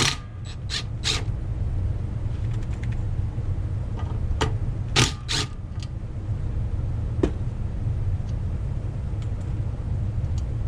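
Small nuts being worked off a brake carrier plate with a hand wrench: scattered sharp metallic clicks and clinks, a cluster in the first second and a few more around the middle, over a steady low hum.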